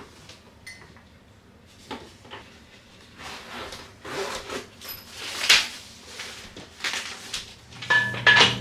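Household objects being handled: scattered knocks, clinks and rustles. Music comes in near the end.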